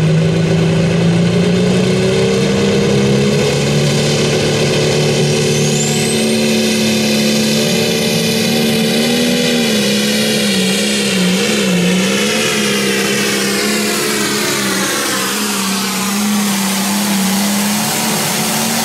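International 1066 pro stock pulling tractor's turbocharged diesel engine running flat out under load as it drags the weight sled, with a high turbo whine over the engine note. The engine speed wavers about halfway through, and the high whine sinks in pitch over the last few seconds.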